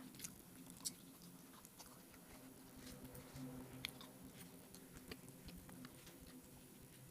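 Faint chewing and eating sounds of a meal of rice and egg curry: scattered soft mouth clicks and smacks, over a low steady hum.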